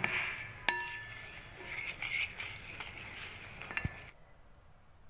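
A spoon clinking and scraping against a heavy-bottomed kadhai while working thick, sticky jaggery syrup. There are a few sharp ringing clinks, at the start, under a second in and near the end, and the sound cuts off abruptly about four seconds in.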